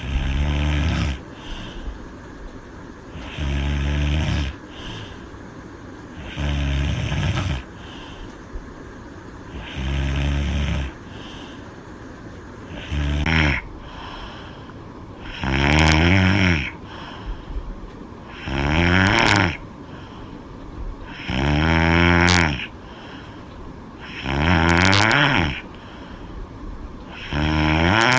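A woman snoring loudly in her sleep: about ten snores, one every three seconds or so, each lasting about a second, with quiet breathing between. From about halfway through the snores get louder and slide in pitch.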